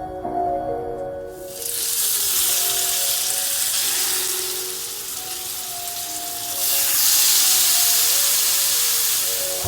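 Food frying in a pan, a steady sizzle that starts about a second and a half in and grows louder about seven seconds in.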